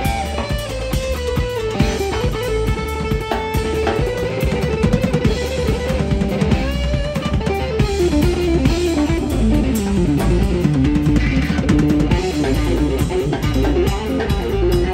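A live instrumental rock trio playing: electric guitar carries a winding single-note melody over bass guitar and a drum kit, with no singing.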